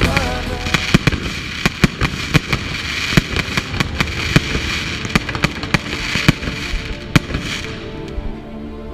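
Fireworks going off: a rapid, irregular run of sharp bangs and crackles over a hiss. The hiss dies away near the end as calm music comes in.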